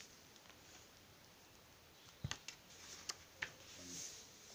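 Near silence with faint handling of a large paperback book: a few soft clicks a little past halfway, then a light paper rustle near the end as the book is turned round.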